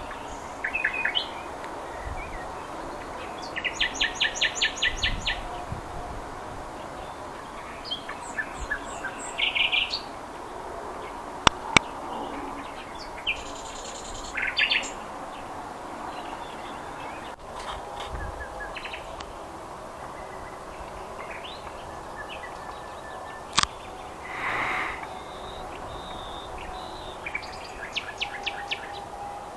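Several songbirds singing, with chirps and fast trilled phrases from different birds coming one after another, over steady background noise. A couple of sharp clicks sound near the middle.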